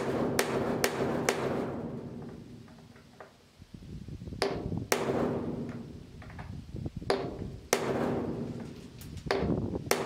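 A hammer strikes an awl held on a rivet head in a school bus's sheet-metal body, punching a centre mark so the rivet can be drilled out. There are about ten sharp metallic blows: four quick ones at the start, then pairs with pauses between. Each blow is followed by the panel ringing briefly.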